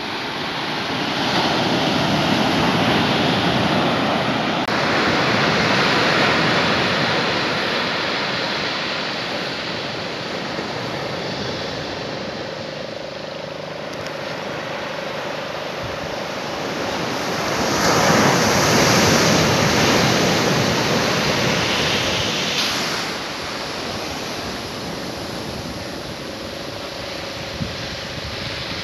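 Surf washing onto a sandy beach, with a steady rush that swells and eases as waves break. The biggest surge comes a little past the middle.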